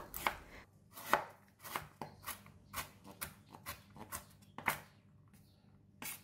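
Chef's knife chopping young galangal on a wooden cutting board: about ten separate knife strikes, roughly two a second, stopping about five seconds in.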